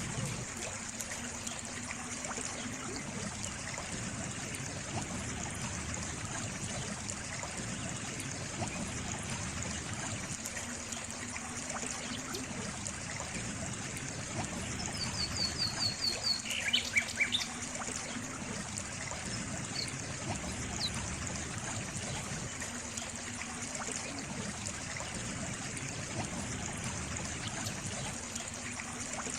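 Steady trickle of running water, like a small stream. About halfway through, a bird gives a quick run of short chirps.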